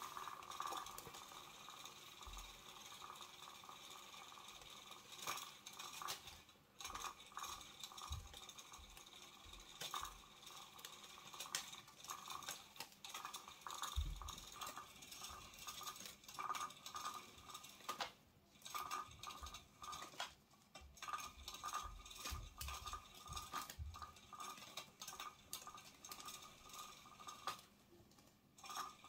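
Motorized butterfly cat toy running: a faint motor whine that comes and goes, with clicking from its gears. A few soft thumps, the loudest about halfway through, from a kitten pouncing on the floor.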